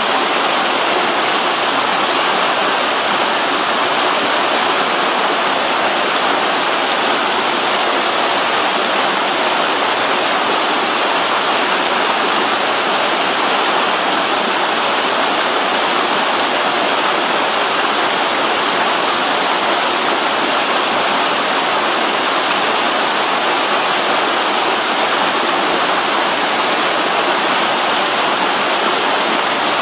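Waterfall on a mountain stream: a steady, unbroken rush of falling water.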